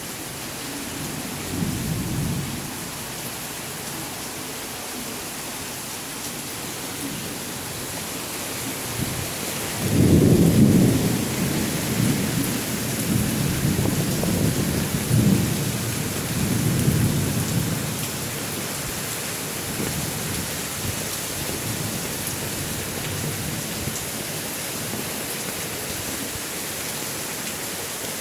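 Heavy tropical rain hissing steadily. A low rumble of thunder rolls in about a third of the way through and fades over several seconds.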